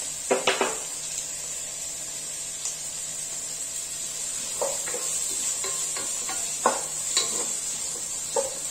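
Chopped onions sizzling in hot coconut oil in a non-stick pot, a steady frying hiss, while a wooden spatula stirs them with short scraping strokes every second or so. This is the sautéing stage, with the onions softening in the oil.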